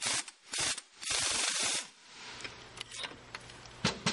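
Impact wrench driving a flywheel puller's centre bolt against the crankshaft end to pull the flywheel off, run in short bursts with the longest lasting about a second. It then stops, leaving a low hum and a couple of sharp metallic clicks near the end.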